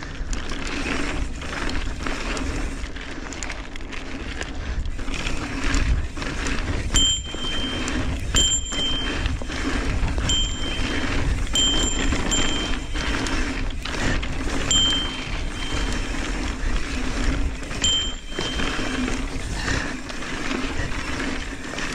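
Mountain bike rolling over a hard-packed dirt pump track: knobby tyres on dirt and wind rushing over the action camera's microphone. From about seven seconds in, several brief high-pitched tones come and go.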